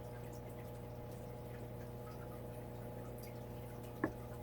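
Quiet room tone with a steady low electrical hum and faint small ticks; a single light tap sounds near the end.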